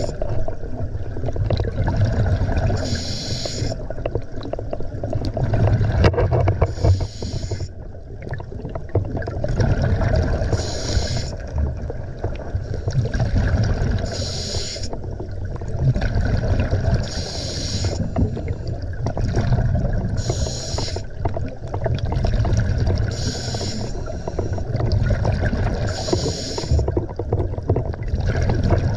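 Scuba diver breathing underwater through a regulator, with a burst of exhaled bubbles about every three seconds over a steady low rumble.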